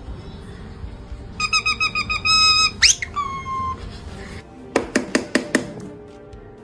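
Parrot mimicking electronic beeping: a fast run of high beeps, then a whistle that sweeps up steeply and settles into a held note. A handful of sharp clicks follow.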